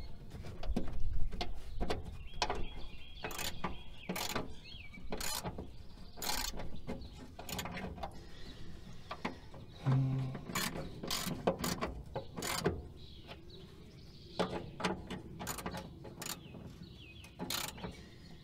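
Hand tools clicking and scraping on metal in irregular sharp clicks while wiring connections in a truck's engine bay are worked on.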